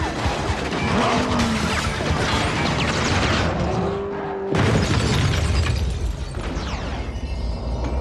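Action-film sound mix: dramatic score over a racing car engine, with booms and crashes. A brief lull gives way to a sudden loud crash a little past halfway.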